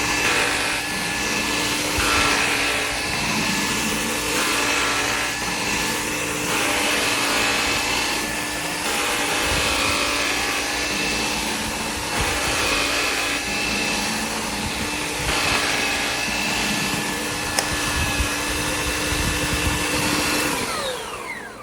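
Bissell AirRam cordless stick vacuum running steadily as it picks up crumbs and debris from a hard floor. Near the end it is switched off and its motor pitch falls as it spins down.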